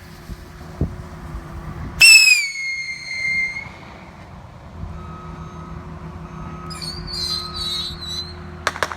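Whistling firework rockets going off: a loud, sudden shrill whistle about two seconds in that dips slightly in pitch and holds for over a second, then fainter wavering whistles later, and a few sharp cracks near the end.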